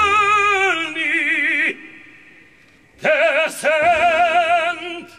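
A man singing a hymn solo and unaccompanied, in a strong voice with wide vibrato. A long held note falls and ends about a second and a half in, and after a short pause a new phrase starts about three seconds in and fades away near the end.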